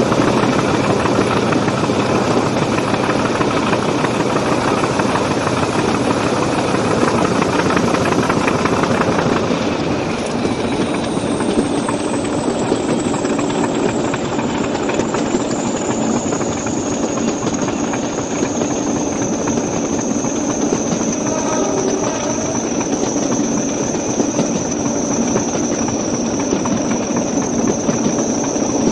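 English Electric Class 40 diesel locomotive working a train, its 16-cylinder engine running with the class's characteristic high turbocharger whistle. The whistle slides down in pitch about ten seconds in and then holds steady, over the noise of wheels on the rails.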